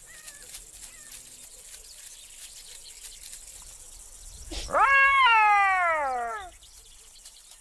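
A Cape buffalo calf bawls once, about four and a half seconds in: one long, high call that rises sharply and then slowly falls, lasting about two seconds. Faint scattered ticks and rustles lie under it.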